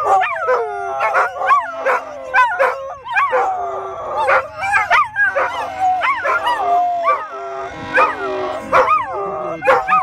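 Several poodles howling together in overlapping, wavering howls broken by yips, with no pause between them. Under the howling, a train horn holds steady tones and stops about three-quarters of the way through.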